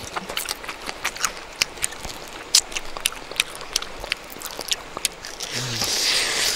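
Close-up eating sounds of someone chewing grilled fish: wet lip smacks and chewing clicks at an irregular pace, with a brief low hum a little after five seconds.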